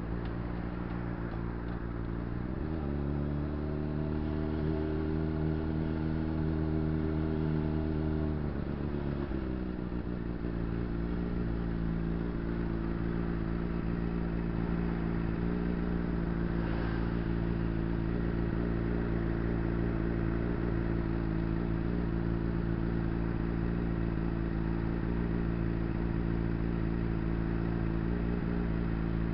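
Honda CBR600RR's inline-four engine holding steady revs for several seconds, then dropping back at about nine seconds and settling into a steady idle as the bike stands stopped.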